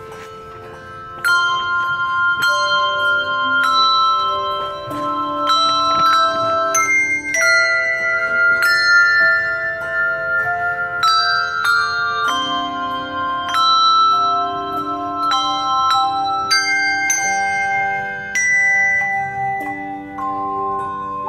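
Handbells playing a slow melody over sustained chords, each struck note ringing on and overlapping the next. The notes are soft at first, then a louder chord enters about a second in.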